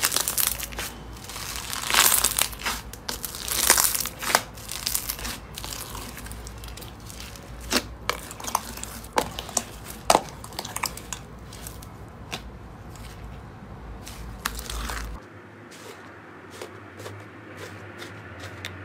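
Bubbly clear slime crackling and popping as fingers press and squeeze it, with dense sharp pops, loudest about two and four seconds in. About fifteen seconds in, this gives way to quieter, sparse little clicks as fingers poke into a thick green slime.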